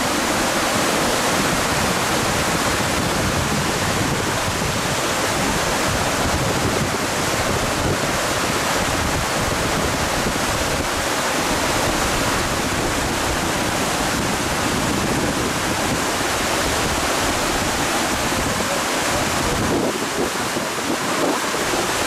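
Creek swollen with muddy floodwater after heavy rain, making a loud, steady rush of water.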